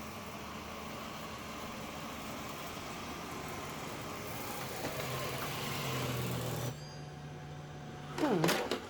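Samsung POWERbot R7040 robot vacuum running, its motor and brush making a steady whirring hiss. About seven seconds in the hiss cuts off sharply, leaving a low hum. Near the end a brief, loud tone sweeps down and back up.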